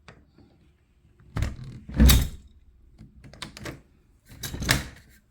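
A door being forced against a portable travel door lock that holds it shut: several thuds and rattles, the loudest about two seconds in.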